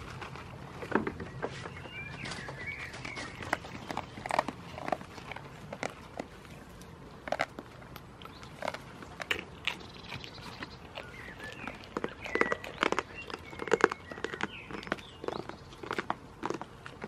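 A goat's hooves knocking and scraping on the wooden slats of a garden bench as it steps and shifts about, in irregular clusters of knocks that are busiest near the end.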